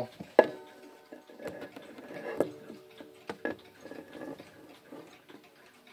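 Ticking of a Howard Miller regulator wall clock's Hermle pendulum movement, picked up close to the works: a few sharp ticks, roughly a second apart, the clearest about half a second in.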